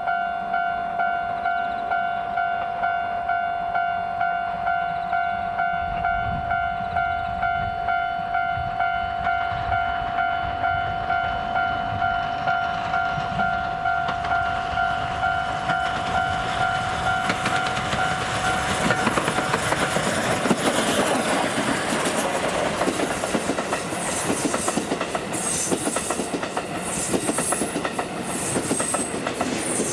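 D51 steam locomotive hauling a train of coaches approaches and passes, the rolling noise and the wheels' clickety-clack over the rail joints building up about two-thirds of the way through. Before that, a steady ringing tone pulsing about twice a second is the loudest sound.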